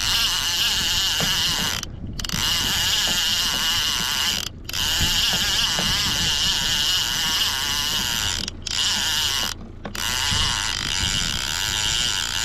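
Fishing reel being cranked to bring in a hooked fish: a steady whirring of the reel's gears, stopping briefly four times.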